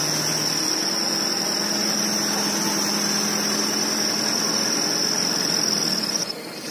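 Dump truck engine running while its hydraulic tipper raises the bed to unload sand, with a low engine hum under a steady high-pitched whine. The whine and much of the noise cut off about six seconds in.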